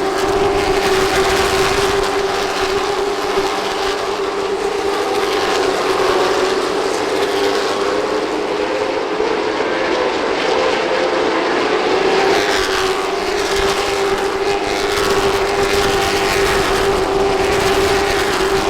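Short-track stock cars racing, a pack of engines droning steadily at high revs, with cars sweeping past in the second half.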